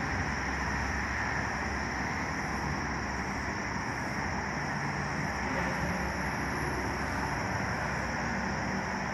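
Steady outdoor background noise with a low rumble and a constant high hiss. No single event stands out.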